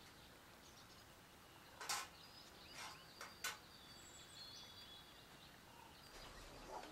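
A few short scrapes and clicks of a spoon against a plate, the loudest about two seconds in and three smaller ones over the next second and a half, over a very quiet background with faint high chirps.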